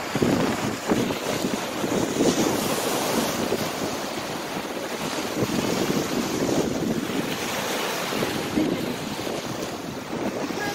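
Small waves breaking and washing up on a sandy beach, with wind buffeting the microphone.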